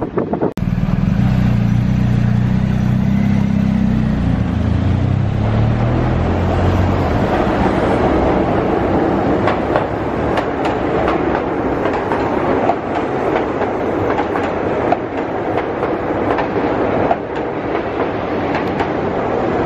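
Keihan Otsu Line electric train running past close by on street-running track. A low hum sounds for the first several seconds, then comes a steady rumble of wheels on rail with sharp clicks as the cars roll over the rail joints.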